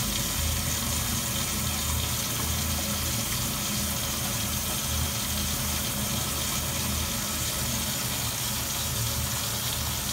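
Shower running steadily into a shower tray with its drain plugged, heard from beneath the tray: an even rush of water.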